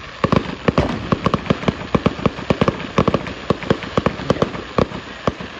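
Fireworks going off in a rapid, irregular string of sharp cracks, about six a second, that stops shortly before the end.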